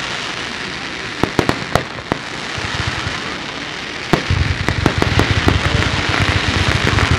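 Fireworks display: a steady crackling hiss with scattered sharp bangs about a second in and a loud one just past four seconds, after which a dense run of low booms sets in.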